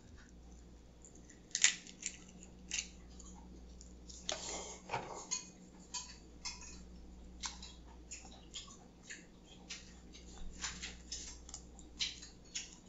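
Walnut shells cracking and snapping as they are pried apart by hand, a run of sharp irregular clicks and crackles. Near the start, a metal spoon clinks in a ceramic bowl; the loudest single click comes about one and a half seconds in.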